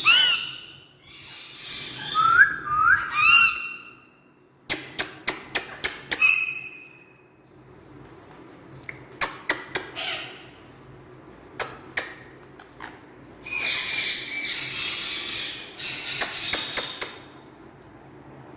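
Pet parrots calling: short whistled calls that slide up and down in pitch, bursts of rapid clicks, and harsher squawks in the second half.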